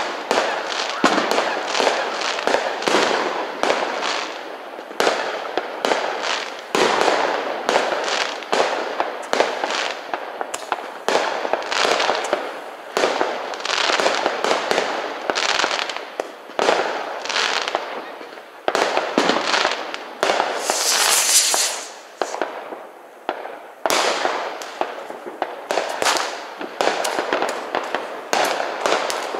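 New Year's Eve fireworks: firecrackers and rockets going off in a dense, continuous barrage of overlapping bangs and crackles, some close and some far off. A brief loud hiss rises over them about two-thirds of the way through.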